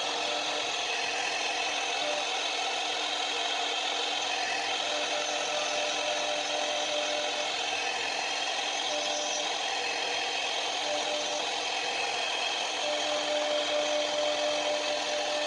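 CNC router spindle running while its small bit cuts shallow grooves into a plywood sheet: a steady, high-pitched machining noise. A steady hum under it breaks off and returns several times.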